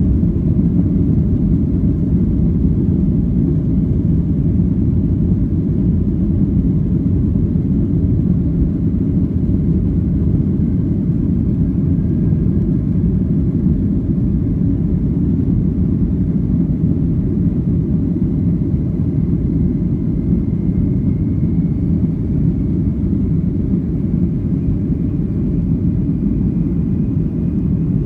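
Boeing 757-300 cabin noise during the takeoff roll, heard inside the cabin: a loud, steady rumble from the engines and from the wheels on the runway. A faint whine rises slowly in pitch from about ten seconds in.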